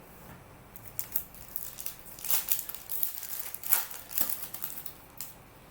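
Crinkling and rustling of a trading-card pack's plastic wrapper being handled and pulled open, in an irregular run of crackles loudest in the middle.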